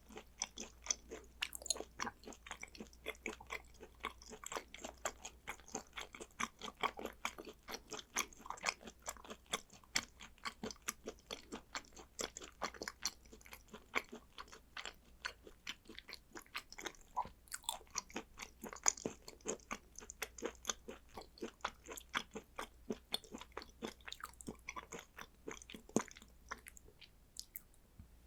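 Close-miked chewing of raw hanwoo beef and sea urchin roe: a steady run of quick mouth clicks and smacks that stops just before the end.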